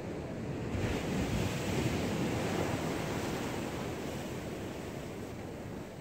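Ocean surf: a wave breaks about a second in and its wash swells, then slowly dies away.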